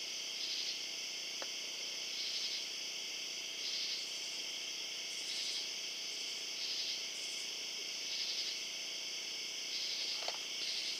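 Crickets chirping in a steady night chorus, with a louder pulse about every second and a half.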